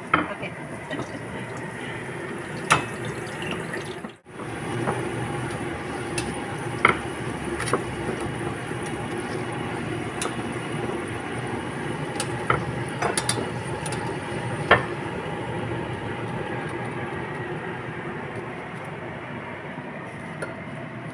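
Flatbread frying in hot oil in a steel pot: a steady sizzle with scattered sharp clicks and pops. The sound breaks off for a moment about four seconds in.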